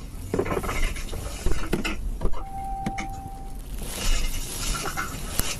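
Clicks, clunks and rattles of handling inside a police patrol car's cabin as the officers prepare to get out. A single steady electronic beep lasts about a second midway through.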